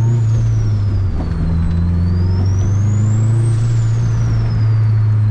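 Turbocharged Honda K-series inline-four running under way, a steady engine drone with a high turbo whistle. The whistle falls, rises again to a peak about three and a half seconds in, then falls away.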